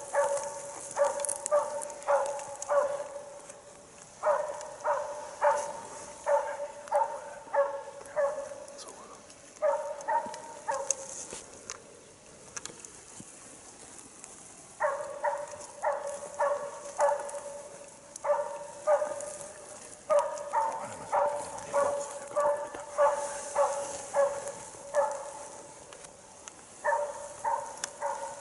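Jämthund (Swedish elkhound) barking in steady runs of about two barks a second, broken by short pauses: bay barking (ståndskall), the dog holding a moose at bay.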